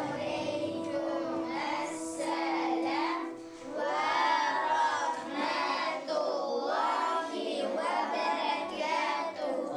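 A class of young schoolchildren singing together in unison, with a short break about three and a half seconds in.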